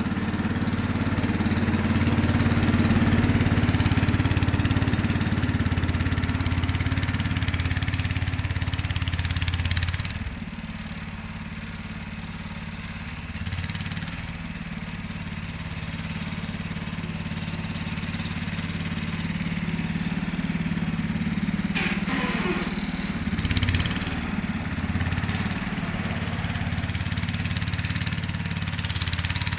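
Sears Suburban 12 garden tractor's single-cylinder Tecumseh engine running steadily while plowing snow. It is loud at first, drops in level suddenly about ten seconds in, and runs on more quietly as the tractor moves away.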